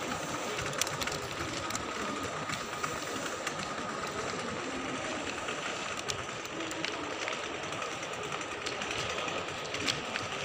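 Steady background noise of a large indoor shopping mall, with a faint steady high tone running through it and occasional light clicks from the handheld phone.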